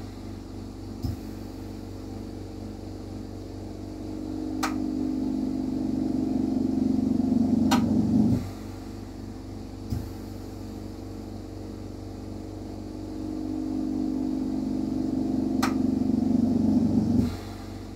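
Steady machine hum in a lampworking workshop with a bench torch burning. The hum swells over a few seconds and drops off sharply, twice, about nine seconds apart, with a few faint clicks between.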